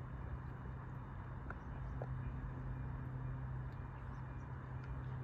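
Steady low hum over a faint haze of background noise, with two faint ticks about one and a half and two seconds in.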